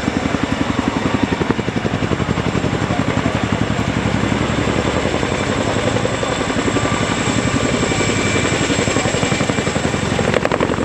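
Boeing CH-47 Chinook tandem-rotor helicopter flying low, its rotor blades beating in a rapid, even pulse over the turbine noise.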